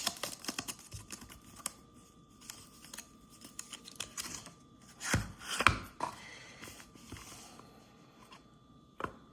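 Handling of a Zippo lighter and its packaging: rustling and scattered light clicks, with two louder knocks a little past halfway.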